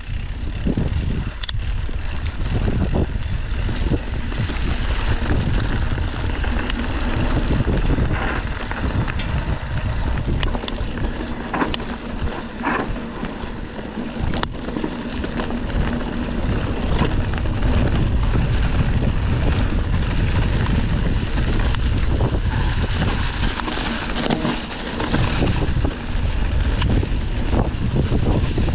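Wind buffeting the microphone of a camera riding along on a bicycle, a continuous low rumble, with scattered rattles and knocks from the bike going over a rough surface.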